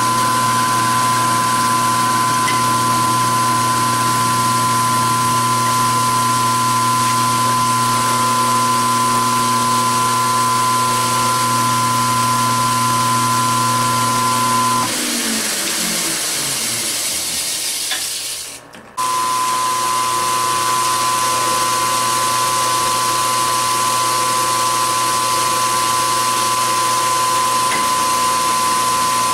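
Milling machine spindle driving a roughing end mill through 1144 stressproof steel under flood coolant: a steady motor whine with cutting noise. About halfway the whine falls away as the spindle winds down and the sound goes briefly much quieter. It then comes back abruptly and runs steadily again.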